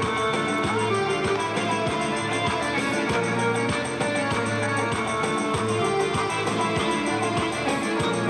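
Instrumental music led by guitar, with a steady beat.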